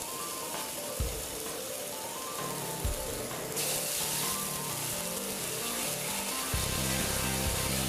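Background music with a steady bass line; about three and a half seconds in, a loud sizzling hiss starts as liquid squirted from a squeeze bottle hits a cast iron skillet of hot mercury and flashes to steam.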